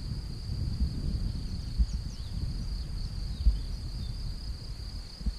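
Wind rumbling on the microphone, with a couple of sharper gusts, over a steady high chirring of crickets; a bird chirps faintly about two seconds in.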